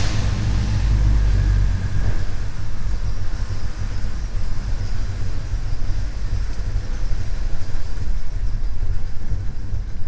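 1977 Chevrolet C10 pickup's engine running steadily just after a start, heard from inside the cab as the truck pulls away. The power steering and A/C belts are slackened, so only the alternator belt is driven.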